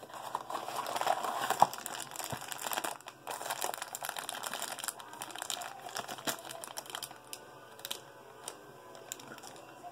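Crinkling and rustling of a Funko Mystery Minis blind box being opened by hand, with many small clicks and snaps of packaging. It is busiest in the first three seconds or so and lighter after that.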